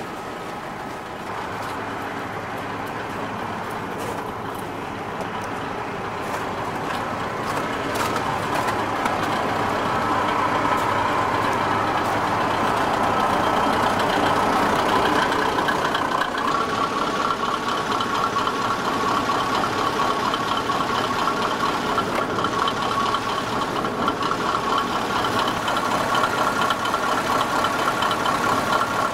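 Underfloor diesel engine of a stationary diesel railcar idling, growing steadily louder as it is approached, with a steady whine that becomes clear about halfway in.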